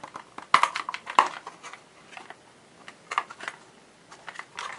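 Sharp plastic clicks and knocks as inserts are popped out of a Predator 3500 generator's plastic air box. The two loudest come about half a second and a second in, with lighter clicks and taps later on.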